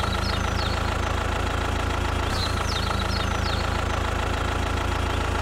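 Tractor engine sound effect idling steadily, laid over the toy tractor, with birds chirping now and then behind it.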